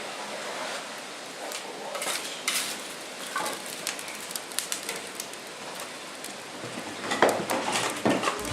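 A 2x8 wood-fired maple sap evaporator boiling, a steady hiss like rain, with scattered clicks and a few louder knocks about seven seconds in.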